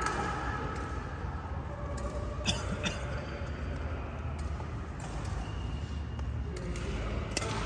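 Indoor badminton hall ambience: a steady low hum with a few short, sharp clicks about two and a half seconds in, about three seconds in, and near the end.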